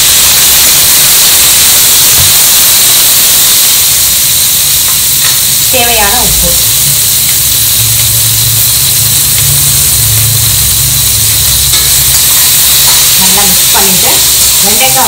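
Freshly added chopped okra sizzling in hot oil in a stainless steel kadai, a loud, steady frying hiss, while a slotted steel spatula stirs through the pieces.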